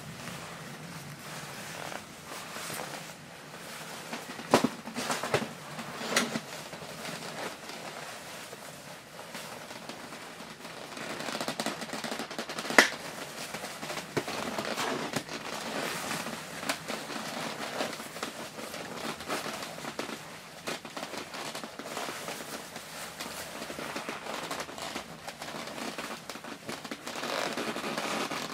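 Shiny nylon snowsuit fabric rustling and crinkling as it is handled and moved during a change of clothes, with a few sharp snaps, the loudest a little before halfway.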